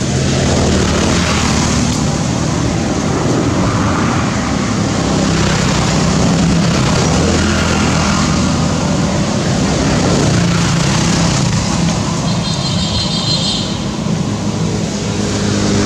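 A steady low mechanical drone like an engine running, with a brief high-pitched sound near the end.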